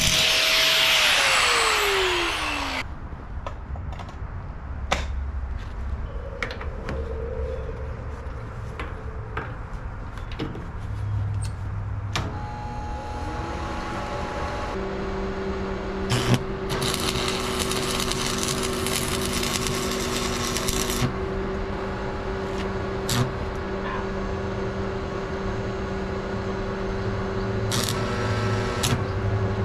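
Corded angle grinder spinning down after being switched off, its whine falling in pitch over about two seconds. Scattered clicks and knocks follow, then from about halfway a steady electrical hum: the Hobart TU-230 stick welder switched on and idling, ready to strike an arc.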